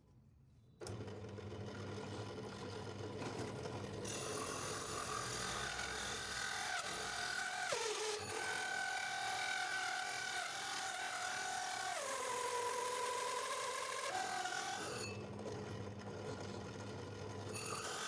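A homemade electric drum sander switches on about a second in and runs with a steady hum. From about four seconds a higher whine joins, dipping in pitch briefly near eight seconds and for a couple of seconds near the middle before coming back up, as the machine is loaded.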